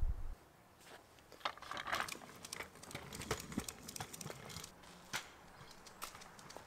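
A low hum cuts off just after the start; then a kick scooter rolls along a concrete sidewalk, its small wheels and deck giving faint, irregular clicks and rattles.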